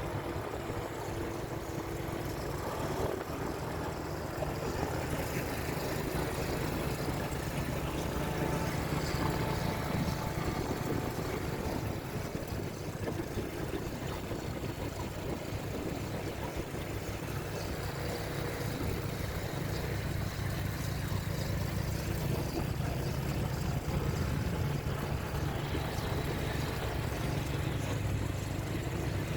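A vehicle engine running steadily, with road and traffic noise.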